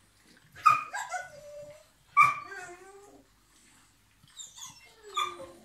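English bulldog whining: three short yelps, each trailing off into a falling whine, with a thin high whine just before the last one.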